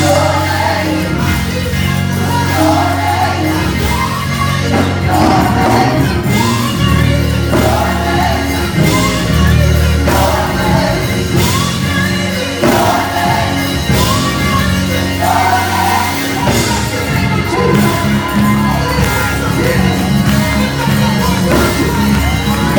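Gospel choir singing live over instrumental accompaniment with sustained bass notes.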